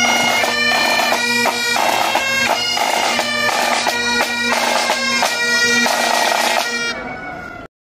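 Bagpipes playing a tune over a steady drone, with quick note changes. The sound cuts off abruptly near the end.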